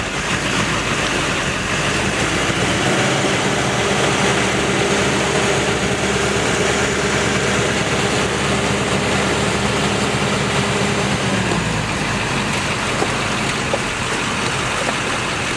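Pickup truck engine idling steadily, its low hum most distinct from about three seconds in until about eleven seconds in.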